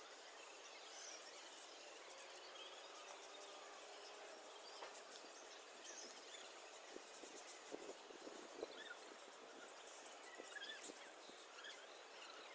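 Faint outdoor background noise with scattered small ticks and bursts of very high-pitched chirping, such as insects, about seven seconds in and again around ten seconds.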